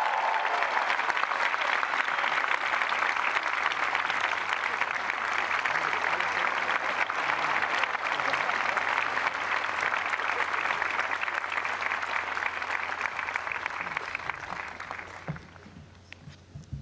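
Large crowd applauding steadily, dying away about a second and a half before the end.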